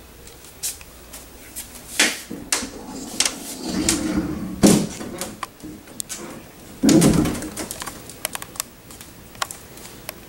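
Objects being handled and moved about in a search: irregular clicks and knocks, with two louder, duller bumps about four and seven seconds in.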